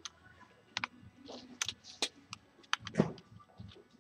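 Scattered light clicks and knocks of plastic RC buggy parts being handled as the centre driveshaft is seated into the rear gearbox outdrive, with a louder knock about three seconds in.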